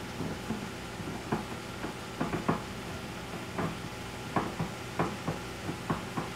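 Chopped bacon sizzling in a frying pan over a gas burner, with irregular clinks and knocks of utensils and cookware being handled.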